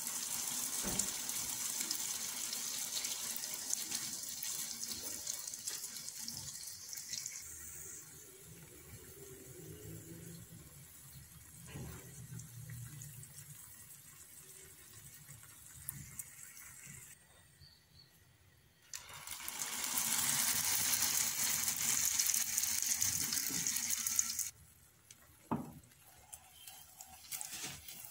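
Dough frying in shallow oil in a pan: a steady high hiss of sizzling. It is loud for the first several seconds, fainter through the middle, and loud again for about five seconds past the middle before cutting off sharply. A few sharp clicks follow near the end.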